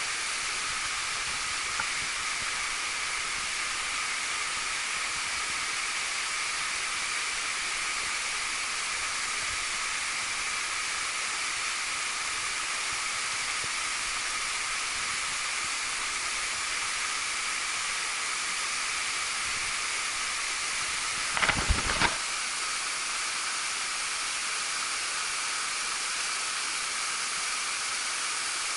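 Waterfall cascading down a rock gorge close by: a steady rushing hiss of falling water. About three-quarters of the way through comes a brief cluster of knocks.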